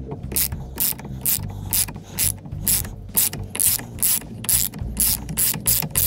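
Hand ratchet clicking as its handle is swung back and forth, a short run of pawl clicks about twice a second, while it backs out the T50 Torx bolt holding the steering wheel to the column.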